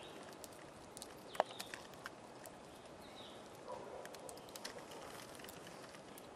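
Faint rustling and scattered small clicks as a piece of bacon is hung by hand on a nail in a tree trunk, with one sharper click about a second and a half in.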